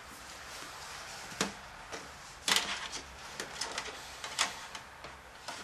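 Handling noises: a few scattered light clicks and knocks as the helmet's coiled power cord and wiring are picked up and moved, the loudest about two and a half seconds in, over a faint steady hiss.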